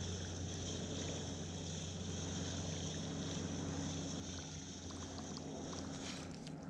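A steady low engine hum, with a steady high chirring of insects above it.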